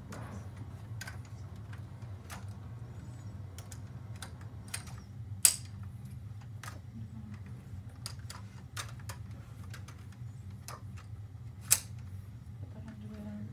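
Metal underarm crutches being adjusted to fit and handled: scattered clicks and clinks, with two sharper ones about five and a half seconds in and near the end, over a steady low hum.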